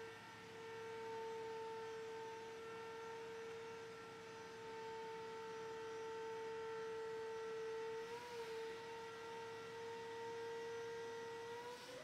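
Raymond swing reach truck's electric hydraulic pump whining steadily as the operator's platform is lifted up the mast. The whine wavers briefly in pitch about two-thirds of the way through.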